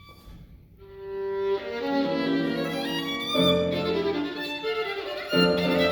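Violin playing: a single held note about a second in, then loud double stops struck with sharp, accented bow attacks, the martelé stroke being practised in the double stops.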